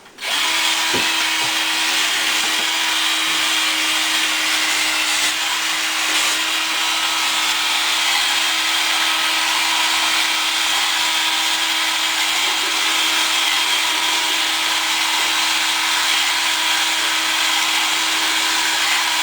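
Electric drill motor switched on at the start and running steadily at one speed, driving the plunger of a boilie paste gun.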